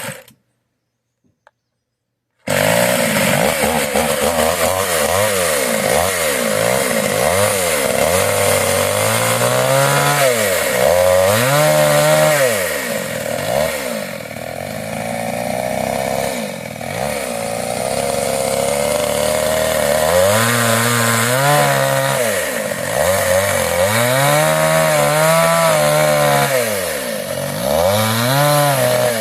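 Silence, then about two and a half seconds in a Kawashima chainsaw starts up abruptly and runs loud, its engine speed rising and falling over and over as it cuts into wood.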